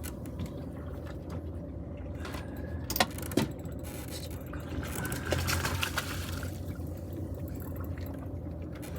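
Water sloshing against a small fishing boat, over a steady low hum, with a few short clicks or knocks about three and five seconds in.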